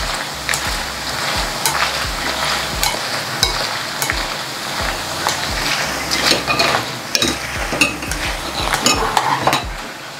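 Chana dal pakoda deep-frying in hot oil with dried red chillies and curry leaves: a steady sizzle with frequent crackles. A long stick stirs through the pan as the pieces fry until crisp.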